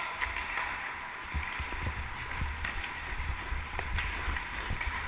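Ice skate blades scraping and carving on the ice, with a few sharp clacks of hockey sticks and puck, picked up by a GoPro Hero 2 on the skater's helmet along with a steady low rumble of wind on the microphone.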